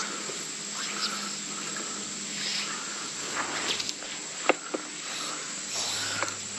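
Steady outdoor chorus of insects such as crickets, with a few faint ticks partway through.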